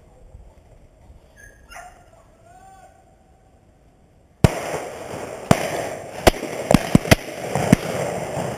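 Rapid shotgun fire: about seven sharp bangs in roughly three seconds, starting suddenly about halfway through over a loud rushing noise, as shots are taken at a flushed pheasant. Faint calls are heard before the shooting.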